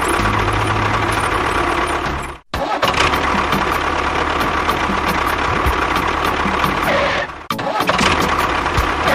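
Mini tractor engine running steadily with a fast knocking tick. It cuts out abruptly about two seconds in and dips again near the end.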